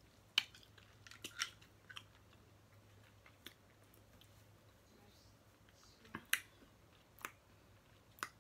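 Snow crab leg shells being cracked and snapped apart, irregular sharp cracks and clicks, with close-up chewing.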